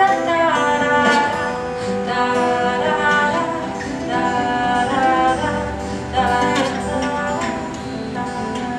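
Live band music led by acoustic guitar, strummed and picked, with sustained notes from other instruments and no clear sung words.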